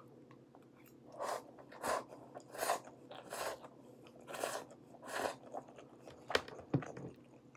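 Close-up mouth sounds of someone eating instant stir-fried noodles: about six short, wet chewing and slurping noises, spaced roughly half a second to a second apart, then two sharp clicks near the end.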